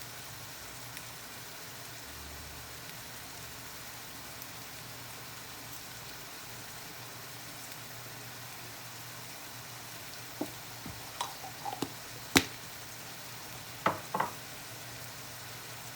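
Rice and peppers frying steadily in oil in a pan, with a few short clinks and taps of a utensil against the pan in the last few seconds, the sharpest about twelve seconds in.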